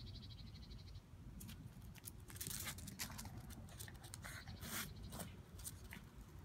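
Small dog making a string of short, high-pitched yaps while playing with a larger dog, most of them between about one and a half and six seconds in.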